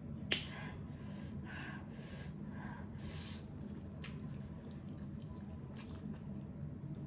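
A person slurping instant noodles off a fork in several short pulls during the first few seconds, with a sharp clink of cutlery on the plate just before and faint clicks later.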